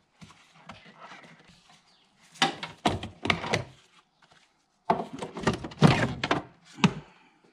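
Plastic engine-bay cowl trim pieces being unclipped and lifted out by hand, giving two bouts of clattering knocks and thunks with light rustling between.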